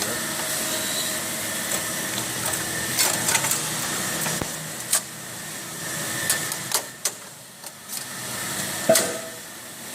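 Sharp metal clicks and knocks from a band saw blade being handled and fitted onto the machine, over a steady mechanical hum that fades about seven seconds in.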